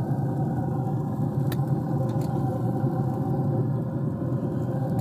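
Steady low rumbling hum of running machinery, with one sharp click of metal tongs against the grill about one and a half seconds in.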